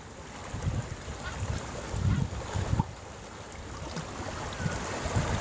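Wind gusting against the microphone in irregular low rumbles over a steady hiss of the sea.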